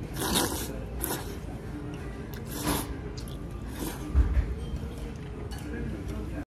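Short hissy slurps of thick udon noodles being sucked up, repeated a few times, over faint background music. A low thump comes about four seconds in.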